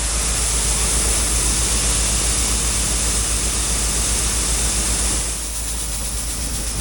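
Farm machinery running: a low engine rumble under a steady rushing hiss, easing slightly about five seconds in.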